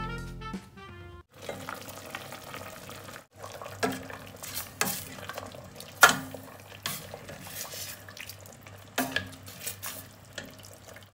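A ladle stirring a pot of pork-bone stew with chunks of meat and radish: a wet stirring sound with several sharp clinks of the ladle against the steel pot, the loudest about six seconds in. Music fades out in the first second.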